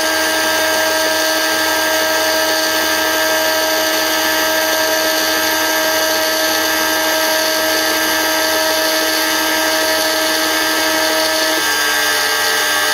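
Homemade CNC router engraving into 4 mm Plexiglas: the spindle and cutter run steadily, with the stepper motors holding steady tones that change pitch near the end as the axis motion changes.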